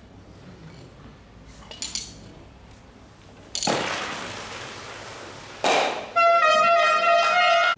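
A curling stock (Eisstock) shot down the lane: a sudden hiss as it lands, fading over about two seconds as it slides, then a sharp clack as it strikes the stocks at the target. A long loud pitched shout follows.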